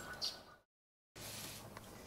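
Faint background noise with a brief, faint high squeak about a quarter second in. It drops to dead silence for half a second where the recording is cut, then faint steady background noise returns.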